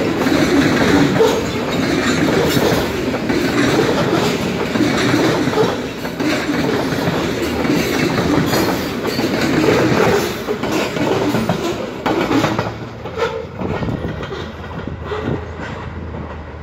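A freight train's covered hopper cars roll past, their wheels clacking steadily over the rail joints. The sound dies away over the last few seconds as the last cars pass.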